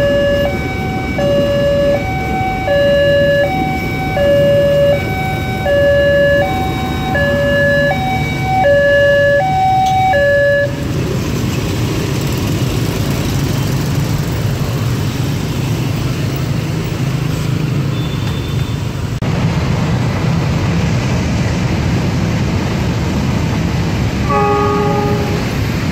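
Railway level-crossing warning alarm ringing in two alternating tones, about a pair a second, cutting off about ten seconds in. Then steady road-traffic noise with motorcycle engines running, and near the end a locomotive horn sounds.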